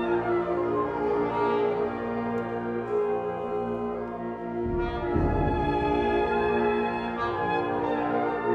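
Wind ensemble with brass holding sustained, layered chords drawn from the overtone series on B-flat. About five seconds in, a low rumble swells in under the held chords.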